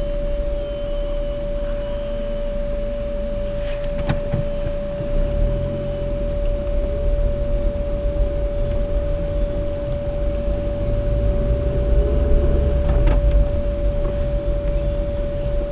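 Car driving slowly through town streets: a low engine and road rumble that grows heavier from about five seconds in, under a steady high-pitched whine. There are two short clicks, about four seconds in and near the end.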